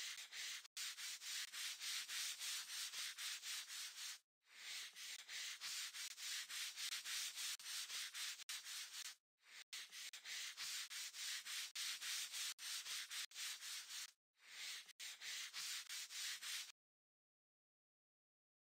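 Rubbing sound effect: quick, hissy strokes at about three to four a second, like swabbing or scrubbing on skin. They come in runs broken by brief pauses and stop a couple of seconds before the end.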